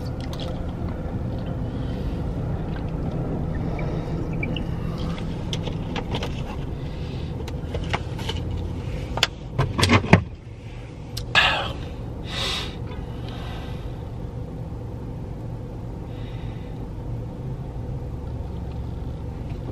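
Steady low rumble of a car idling, heard inside the cabin. About ten seconds in there is a cluster of sharp knocks and a thump, the loudest sounds, followed by two short hissy rustles.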